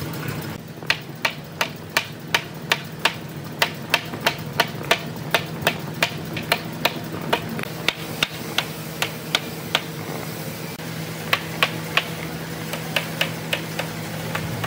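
Hammer tapping a corner joint of a wooden frame: a steady run of sharp blows, about two to three a second, a short pause about ten seconds in, then a few more blows. A steady low hum sits underneath.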